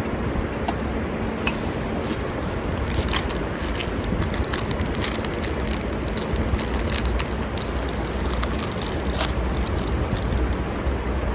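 Steady rush of river water with scattered sharp crackles from a wood fire, the crackles coming thick from about three seconds in.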